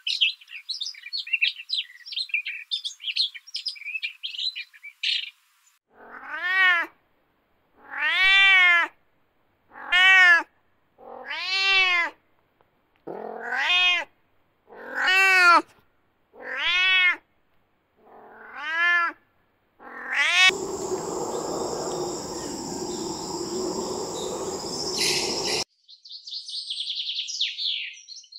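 An animal calling over and over, about nine drawn-out cries spaced roughly two seconds apart, each rising and then falling in pitch. Quick high bird chirping comes before them. Afterwards there is a few seconds of rushing noise with a high steady whistle, then chirping again near the end.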